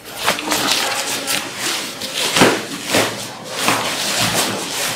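Polyester tent fabric rustling and swishing as a fiberglass frame pole is pushed through its sleeve and the fabric is gathered along it, in a run of uneven swishes.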